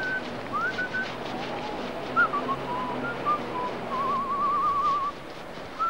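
A person whistling a tune in short gliding phrases, ending in a held, wavering note about four seconds in, over the steady hiss of a hose spraying water.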